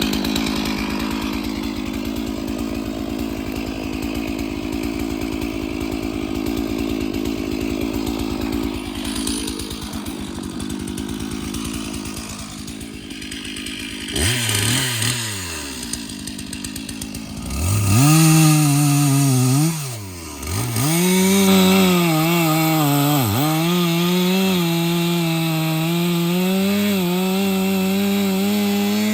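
Stihl chainsaw running steadily, then its engine note falls away about 14 seconds in. About 18 seconds in it revs up to a high steady pitch and holds there, dipping twice as it bogs under load in a cut.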